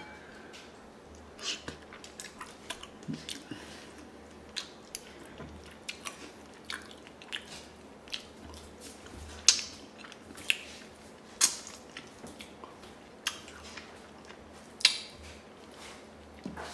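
Close-up eating sounds of a person chewing and sucking braised chicken feet: wet chewing with irregular sharp smacks and clicks, a few of them much louder.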